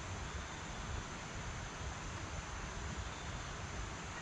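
Outdoor ambience in a stand of trees: wind buffeting the microphone in low, uneven rumbles over a steady, even hiss.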